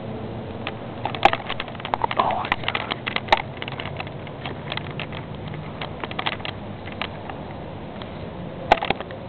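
Irregular clicks and rustles from a handheld digital camera being handled, over a steady background hiss and low hum. The clicks bunch together about a second in, thin out, and come back as a louder pair near the end.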